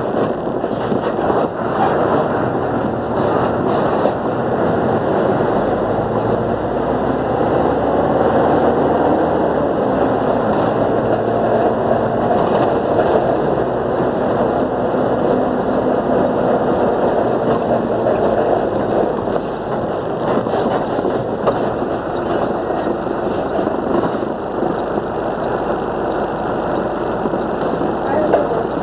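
Diesel city bus driving along a town street, its engine running and road noise steady, heard from inside the bus, with a few knocks as it crosses a speed bump near the start.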